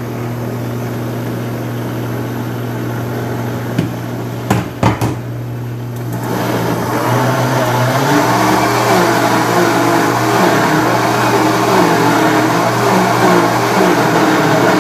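Electric kitchen blender motor running as it mixes a thick chocolate cake batter of flour and cocoa. A few sharp knocks come about four to five seconds in. From about six seconds in the motor runs louder, and its pitch wavers as it works the batter.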